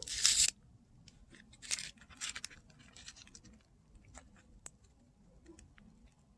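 Hands turning over a pocket watch. A short burst of rustling comes at the start, then faint scattered rustles and a few light clicks.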